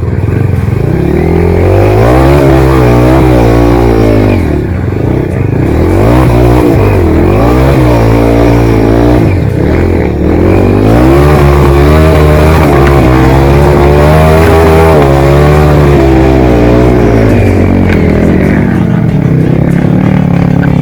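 Trail motorcycle engine revving loudly, its pitch rising and falling again and again as the throttle is worked, with short drops about four and ten seconds in and easing off near the end.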